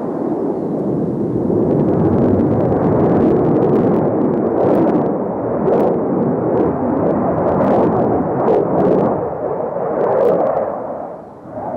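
Loud jet noise from a MiG-29 fighter's twin engines on a display pass, swelling over the first couple of seconds and then holding. From about five seconds in, sharp crackles sound over it, and it dips briefly near the end.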